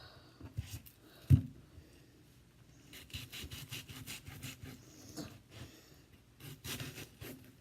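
Kitchen knife cutting through an onion on a cutting board: a sharp knock of the blade on the board about a second in, then runs of quick rasping slicing strokes.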